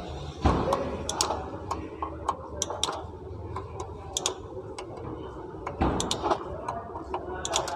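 Ratchet wrench clicking in short runs as the bolts of an automatic transmission valve body are undone, with two heavier metal knocks, about half a second and six seconds in.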